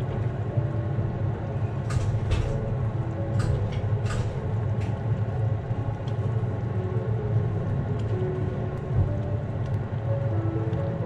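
Blueberry jam simmering in a stainless steel pot and stirred with a wooden spatula: a steady low rumble, with a handful of sharp clicks or pops about two to five seconds in.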